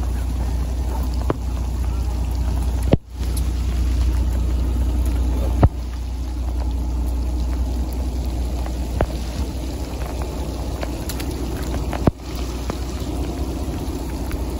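Steady low rumble of a fishing boat's engine running, with rain falling and a few sharp taps scattered through.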